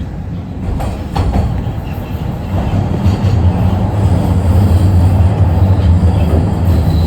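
TTC Line 1 subway train running through the tunnel, heard from inside the car: a steady low rumble that grows louder as the train picks up speed, with a few clacks from the wheels about a second in.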